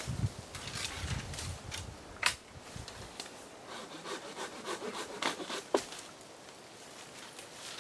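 Fiskars folding saw cutting through a tree limb, its blade going through the wood in a series of short, uneven strokes.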